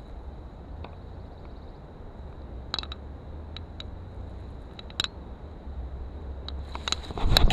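Low wind rumble on the microphone with a few faint clicks, then a quick flurry of louder clicks and handling noise near the end as the fishing rod and reel are worked.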